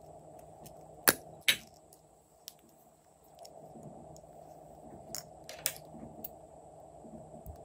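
Metal-cased lipstick tubes being handled and uncapped: two sharp clicks about a second in and two softer ones a little past the middle, over a low steady hum.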